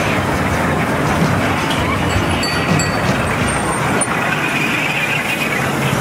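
Kiddie train ride running along its track: a steady mechanical noise.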